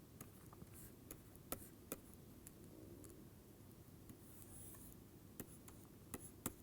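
Near silence: room tone with a few faint, sharp clicks scattered through it, the clearest about one and a half and two seconds in and several more near the end.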